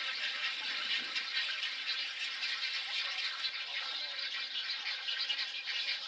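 Din of a nesting egret colony: many birds calling at once in a steady, dense chatter of rapid, overlapping rattling and clacking calls.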